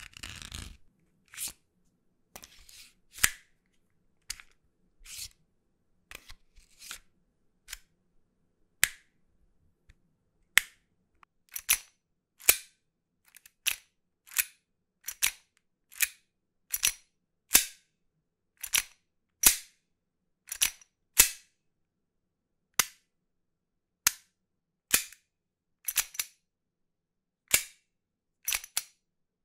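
Redwolf custom Glock gas-blowback airsoft pistol being cycled shot after shot, a series of sharp snapping reports from its slide and action. They come about one a second with irregular pauses, fainter for the first ten seconds or so and then louder and more evenly spaced.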